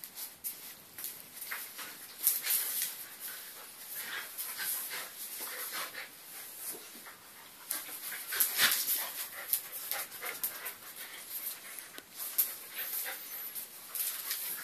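A Eurasier puppy and an adult Eurasier play-fighting: panting and huffing, with irregular quick clicks and scrapes of claws scrabbling on a tile floor.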